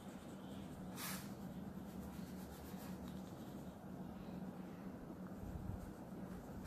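Oil pastel rubbing on drawing paper in small colouring strokes, faint, with one sharper scratch about a second in, over a steady low hum.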